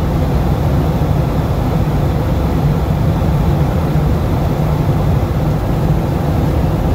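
Steady low rumble of engine and airflow noise inside the cabin of a Boeing 737-800 on final approach, heard from a window seat near the wing.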